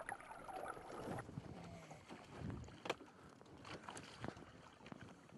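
Faint wind and water noise from a boat on open water, with a few light clicks.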